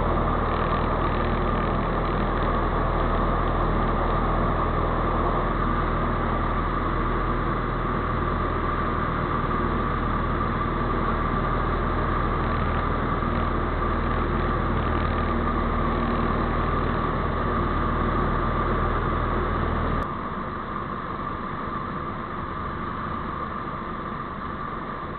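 Ultralight aircraft engine and propeller running steadily, heard from the open cockpit in flight. About twenty seconds in the sound drops abruptly to a quieter, thinner level, as power comes back for the landing approach.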